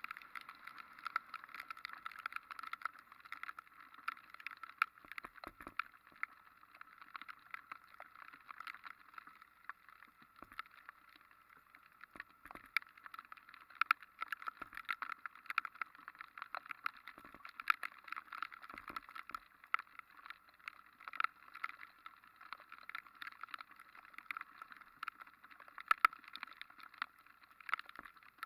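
Motorcycle riding on wet streets in the rain: a steady hum of engine and road, with many small irregular taps and clicks throughout.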